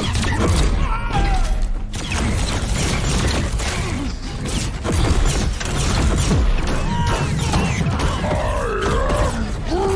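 Movie action-scene soundtrack: a dense run of sound effects, with repeated impacts, crashes and mechanical clanks, under music. There is a grunt or two, and a wavering pitched sound near the end.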